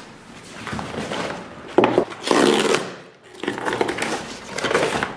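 A small cardboard carton being handled and opened by hand: scraping, rustling and crinkling of the cardboard packaging, in two spells from about two seconds in.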